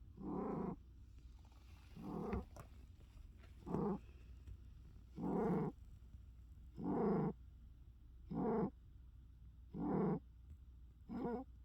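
Domestic cat snoring in its sleep: eight short, loud snores, one on each breath, about every second and a half.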